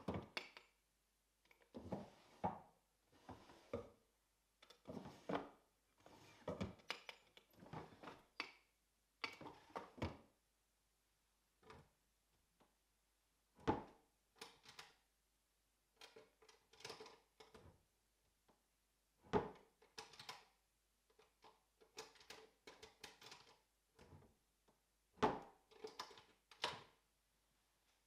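Wooden drawers and cupboard doors of a painted wooden cabinet being opened and shut again and again: drawers sliding in and out and doors closing, a long series of short wooden knocks and rubs with brief pauses between.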